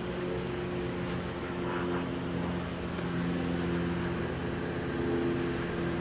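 Steady low machine hum with several steady tones that shift slightly in pitch.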